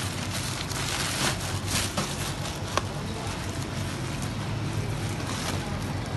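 Bubble wrap and plastic packaging rustling and crinkling as hands move them about in a cardboard box, with a steady low hum underneath.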